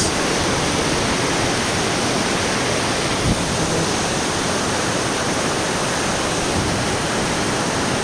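Steady rush of whitewater: a rocky mountain stream tumbling over boulders.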